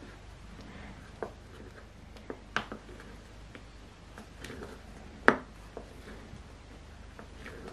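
Thin wooden spatula stirring whipped cream in a ceramic bowl, with soft scraping and irregular clicks and knocks against the bowl; the loudest knock comes a little after five seconds in.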